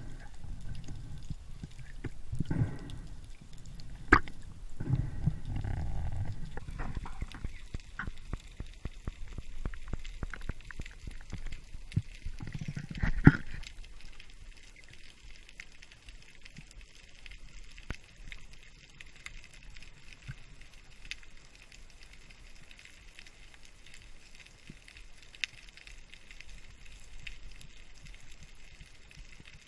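Underwater sound on a spearfishing dive: water rushing and low handling rumbles for the first several seconds, with a sharp knock about four seconds in and another, louder, about thirteen seconds in. After that a steady faint crackle of many small clicks.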